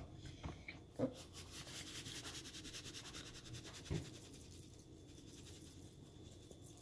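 Metal spoon beating a thin flour batter in a plastic bowl: fast, even scraping strokes, faint, with a light knock at about one second and again at about four seconds, after which it grows fainter.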